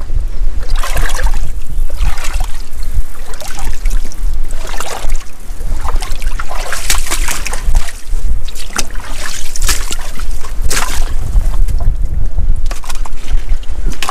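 Wind buffeting the microphone in a constant low rumble, with repeated bursts of water sloshing and splashing in a shallow rock pool among kelp.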